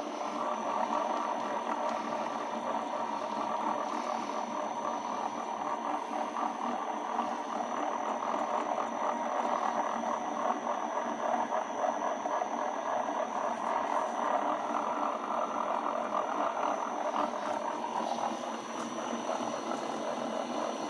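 1D601 benchtop metal lathe running steadily, with motor and drive noise, easing off slightly near the end.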